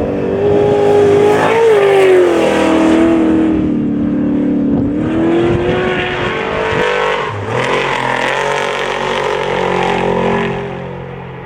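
Off-road desert race vehicles' engines running hard as they pass at speed. The pitch rises and falls with the throttle, the sound swells early and fades near the end.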